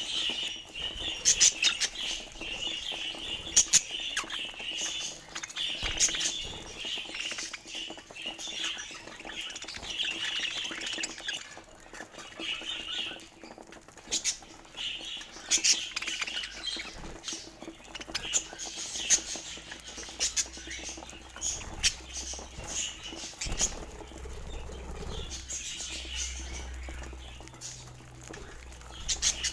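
Budgerigars chattering and warbling, mixed with many quick clicks and scratches.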